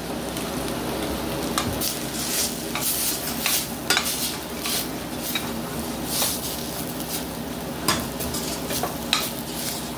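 A metal spoon scraping and clinking against a stainless steel saucepan as fish choka is stirred, in irregular strokes over a steady sizzle of the mixture cooking in the pan.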